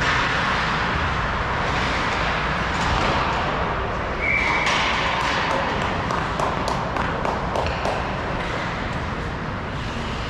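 Steady noise from game play on an ice rink, with a quick run of sharp clacks from sticks and puck about halfway through and a brief high tone just before them.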